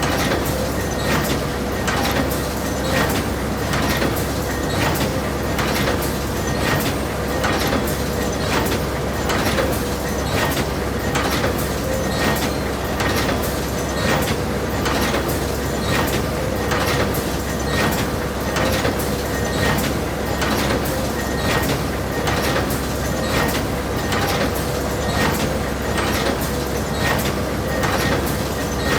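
Industrial cutting machine running steadily, with a sharp clack repeating evenly about twice a second over a constant hum and whine.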